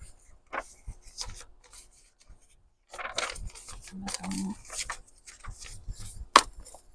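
Paper pages rustling and sliding as they are shuffled and sorted by hand, with scattered light taps and one sharp tap about six seconds in.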